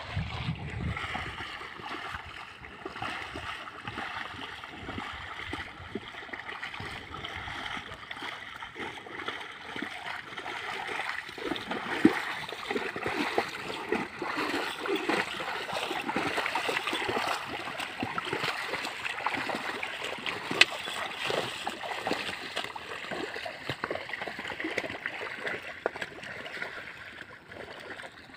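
Muddy water sloshing and splashing as a pair of water buffalo wade through a flooded paddy field, dragging a wooden plough and plank leveller through the mud. Two sharp clicks stand out, about twelve and about twenty seconds in.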